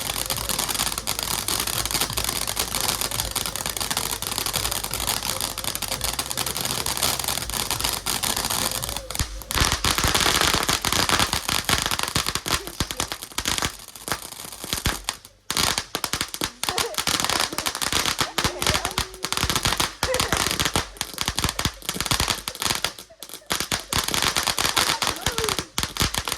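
A firework going off in a long run of rapid crackling pops and bangs, dipping briefly a couple of times in the second half before carrying on.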